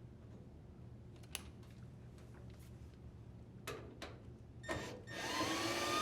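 A few light clicks of handling, then about five seconds in a drill driver starts driving a screw into the dryer's panel, its motor whine rising slightly in pitch as it runs.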